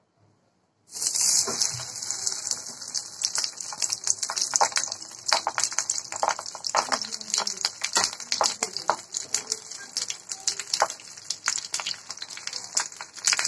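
Hot mustard oil sizzling around banana-leaf-wrapped fish parcels as they are laid into a frying pan: a sudden, steady hiss with crackling pops, starting about a second in.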